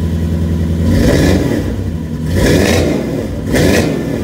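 Toyota 1UZ-FE V8 running through a side-exit exhaust with stainless steel tips, idling steadily and then blipped three times. Each rev rises and falls in pitch.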